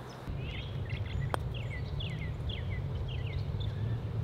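A putter strikes a golf ball once, a single sharp click about a second and a half in. A bird repeats short falling chirps about twice a second over a steady low rumble of wind on the microphone.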